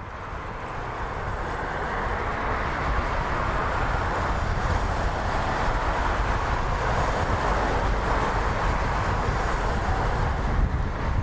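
Steady rumbling background noise that fades in over the first two seconds and then holds evenly.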